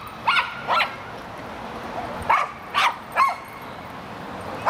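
Dog barking: short, sharp barks that drop in pitch, two close together near the start, then three more after a pause of about a second and a half.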